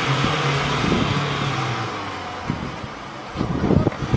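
Pickup truck engine running with a steady low drone that eases off past the middle, followed by a few sharp knocks near the end.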